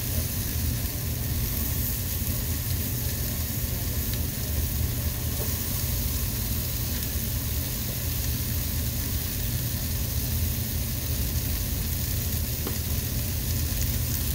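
Diced onions frying in a nonstick pan with a steady sizzle as raw chorizo is squeezed in from its casing, over a low steady hum.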